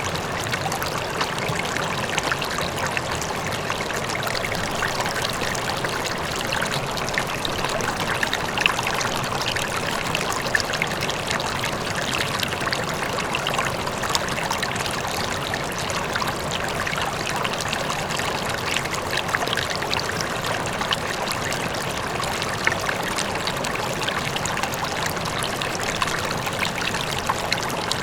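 River water flowing and splashing steadily over rocks, a constant rushing with small bright splashes scattered through it.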